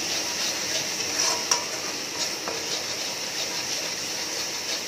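Metal spatula stirring and scraping onion and ginger-garlic paste as it fries in oil in a metal kadai, with a steady sizzle. Scattered metal-on-metal clinks and scrapes come through it, a few ringing briefly around the middle. The paste is being sautéed to cook off the raw ginger-garlic smell.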